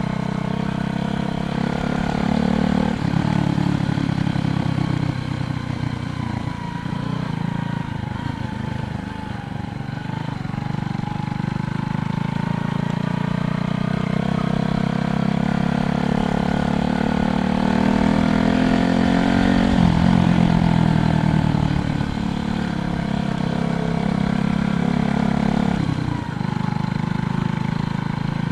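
Motor vehicle engine noise on the road: a pitched engine sound that climbs and grows louder, then drops sharply about twenty seconds in as a vehicle passes, over steady road noise.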